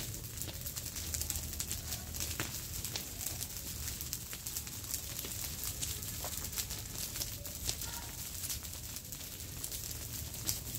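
Dry brush pile burning with irregular crackling and popping, while dry branches and leaves are raked and rustled onto the flames. A few faint short calls sound in the background.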